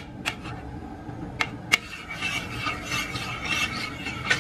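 Metal spoon tapping a few times against a frying pan, then scraping and stirring eggs around the pan from about two seconds in.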